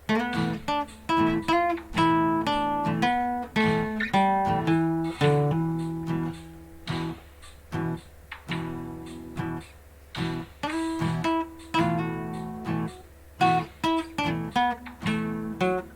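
Acoustic guitar playing an instrumental blues passage: many single picked notes and short strummed chords, each starting sharply and fading.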